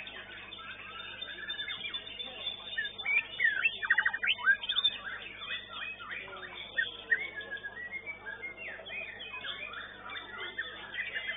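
White-rumped shama (murai batu) singing in a bird-contest cage: a varied run of whistles, chirps and glides, with a fast trill about three and a half seconds in, other caged songbirds singing alongside, heard through a CCTV microphone.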